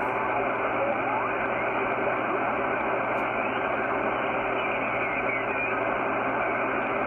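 HF transceiver receiving static: a steady hiss from its speaker, cut off above the voice band, with a few faint wavering whistles.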